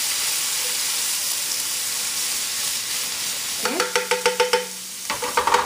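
Garlic-ginger paste sizzling in hot oil in a frying pan, a steady hiss. Twice in the second half a quick run of clicks rings out as the spatula scrapes and taps against the pan while stirring.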